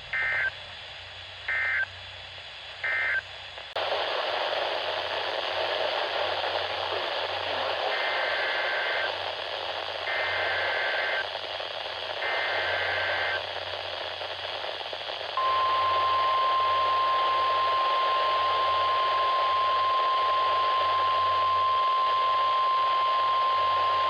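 NOAA Weather Radio Emergency Alert System signalling over a hissing radio channel. It begins with three short two-tone data bursts that end the previous message. Then come three longer bursts of the same warbling two-tone SAME data header, and then the steady 1050 Hz warning alarm tone held for about nine seconds, the signal that a new warning is about to be read.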